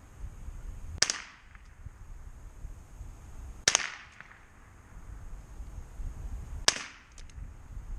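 Three .22 Long Rifle shots from a Savage .22 rifle, sharp cracks a little under three seconds apart, each with a short ringing tail.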